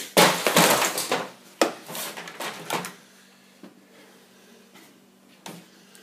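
Handling noise: about three seconds of dense rustling and crackling with sharp knocks as cables and a power-supply unit are moved about, then a few single knocks over a faint steady hum.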